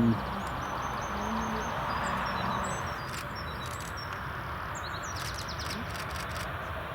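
Steady distant rush of jet aircraft engines on the airfield, with small birds chirping over it, including a quick twittering run about five seconds in.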